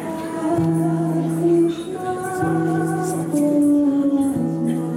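Live devotional bhajan music: long held notes, the low one restarting about every two seconds, under a slow melody that steps from note to note, with a woman singing.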